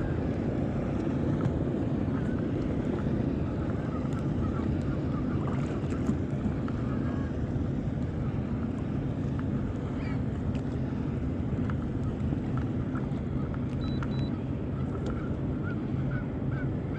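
Boat motor running steadily at low speed, a constant low hum.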